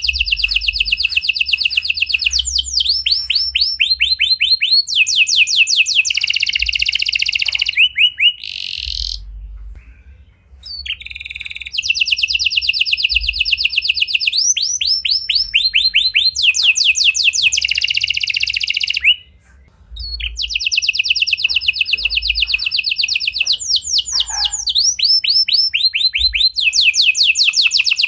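Domestic canary singing a long, loud song made of fast trills and rapidly repeated notes that change from phrase to phrase. It sings in three long bouts, with short breaks about nine and nineteen seconds in.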